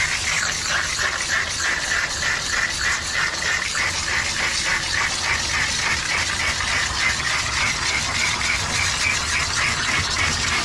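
A grooming bathing-system hose spraying through a nozzle held against a wet dog's coat: a steady rushing hiss of water, with a low hum beneath it.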